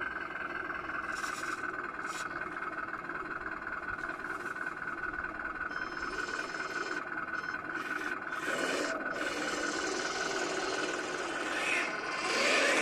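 Steady whine and gear noise from small radio-controlled model vehicles as a six-wheeled 1/16-scale army truck creeps forward. From about eight seconds in, a louder, rougher running sound joins it, growing louder near the end as a 1/16-scale model Sherman tank drives in close.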